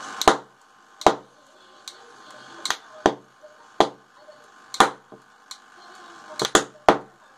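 About ten sharp pops at irregular intervals, each with a short ring, over a faint steady hum: small ignitions of the hydrogen-oxygen gas at the outlet nozzle of a homemade electrolysis cell.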